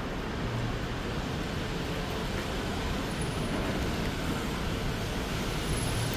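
Steady city street traffic noise: an even wash of road vehicles with a low hum underneath.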